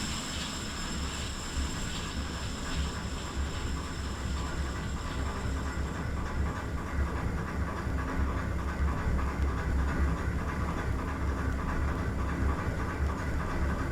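Ship's engine machinery running steadily: a continuous low rumble with hiss above it.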